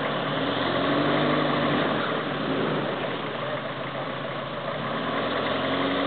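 Engine of a Toyota 4x4 off-roader running steadily at low revs while the vehicle crawls through deep mud, swelling slightly about a second in.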